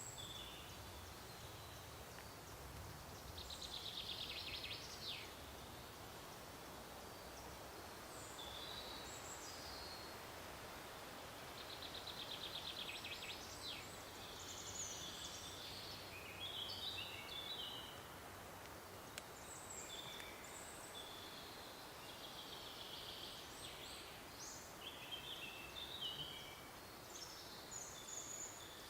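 Faint forest ambience at a woodland pond, with several small birds calling and singing in short chirps and trills that recur every few seconds over a steady soft background hiss.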